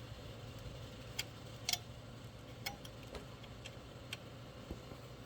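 Ratchet wrench clicking in short, irregular ticks, about two a second, while tightening an alternator mounting bolt by hand.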